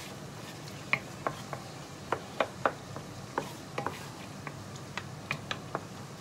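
Wooden spatula knocking and scraping against a non-stick frying pan while tofu in sauce is stirred: a run of irregular sharp clicks, starting about a second in.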